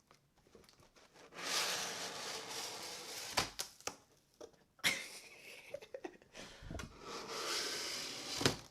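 Box-opening knife slicing through a cardboard box and its tape close to the microphone: two long rasping cuts, with a few sharp knocks in between and one at the end.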